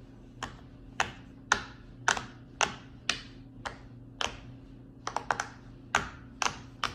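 Silicone butterfly pop-it fidget toy having its bubbles pressed one by one: sharp pops about twice a second, with a quick run of four a little after five seconds in. It is a stiff one whose bubbles keep springing back up and are hard to pop.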